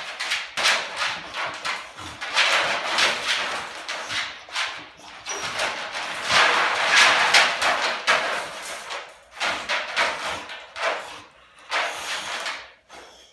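Wire dog crate rattling and clanking as a dog inside works at the door with its mouth and paws, a dense run of metal knocks broken by short pauses.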